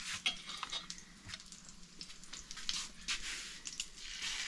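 Hot fat in a frying pan crackling and popping in short scattered snaps, swelling into a steadier sizzle near the end as the pan is ready for frying battered squash blossoms.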